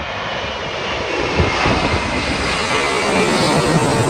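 Airbus A380-861's four Engine Alliance GP7200 turbofans on final approach, a steady jet noise that grows louder as the airliner passes low overhead.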